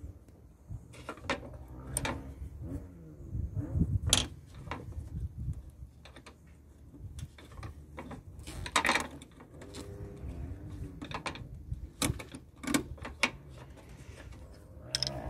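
Irregular mechanical clicks and knocks, a few sharper ones around the middle and near the end, over a low rumble.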